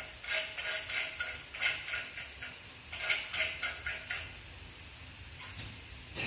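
Aluminium window profiles being handled by hand: a run of light, irregular metallic clinks and scrapes for about four seconds, then quieter.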